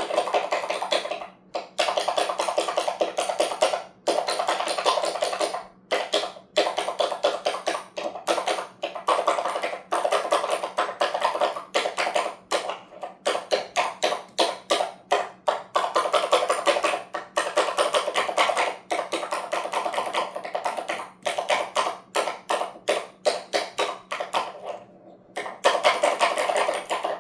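Fast, continuous clicking or tapping in runs broken by short pauses every few seconds, over a faint steady hum.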